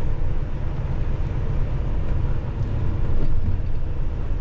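Semi-truck engine running with a steady low rumble, heard inside the cab.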